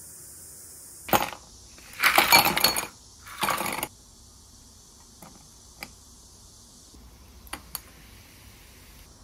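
Ice cubes dropped into a stemmed glass, clattering and clinking in three bursts between about one and four seconds in, the middle one the loudest. A few faint clinks follow later.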